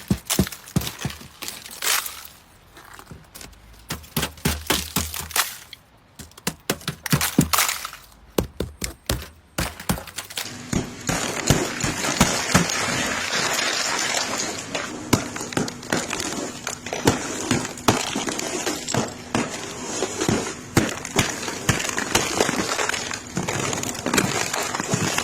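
Ice being broken off a car: a run of sharp cracks and snaps. About ten seconds in it turns into a steady, dense crackling with sharper cracks still breaking through.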